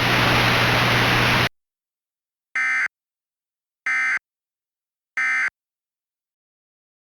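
Static hiss over a low hum cuts off abruptly about a second and a half in; after a pause come three identical short, buzzy data bursts about 1.3 s apart: the Emergency Alert System end-of-message (EOM) tones that close the alert.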